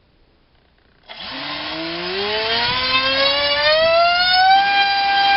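Racerstar BR2406S 2300 kV brushless motor with an APC 6x4 propeller, on a 4S battery, spinning up under throttle. After about a second of quiet, a whine starts and climbs steadily in pitch, then levels off at a steady high pitch near the end.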